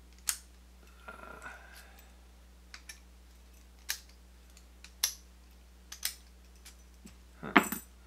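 A solid brass padlock and its keys being handled. Sharp metal clicks come about once a second as the shackle is pushed shut and the key is worked. There is a brief jingle about a second in and a louder clatter near the end.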